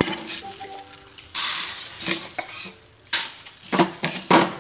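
Dry mung beans (green gram) poured into a hot, dry frying pan, rattling and scattering across the metal in a series of short clattering bursts.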